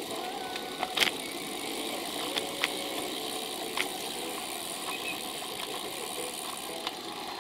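Steady road and wind noise from a camera mounted on a moving bicycle, with a few sharp clicks and rattles scattered through.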